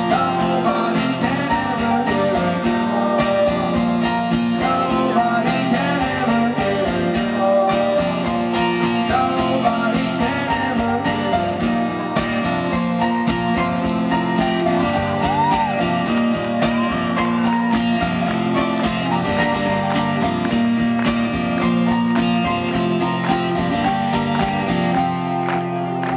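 A live rock band playing through a stadium PA: strummed guitars with some singing over a steady beat, recorded from the audience stands.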